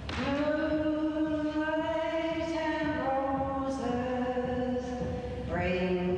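A woman singing solo, unaccompanied, in long, slow held notes that step down in pitch from one note to the next.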